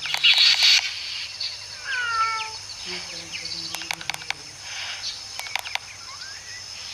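A cat and an injured owl facing off: a loud hiss in the first second, scattered sharp clicks, and a short falling meow about two seconds in.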